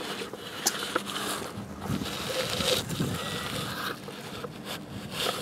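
Bruder toy road roller pushed over loose dirt: soft gritty scraping and crunching with small scattered clicks.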